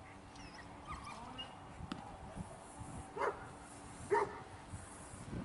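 Black working-line German Shepherd barking twice, about a second apart, at a helper who is provoking it in protection work, with fainter whining yips before the barks.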